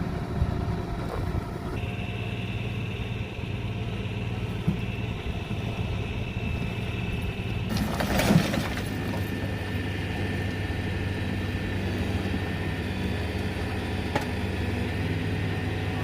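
A vehicle engine idling steadily, with a brief rush of noise about halfway through.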